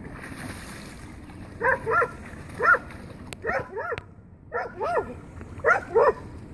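A dog barking repeatedly, about nine short barks, mostly in quick pairs.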